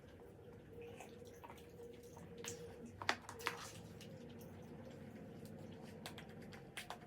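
Faint wet chewing and mouth sounds of someone eating braised pork kimchi stew, with small scattered clicks and two sharper clicks about three seconds in, over a steady faint hum.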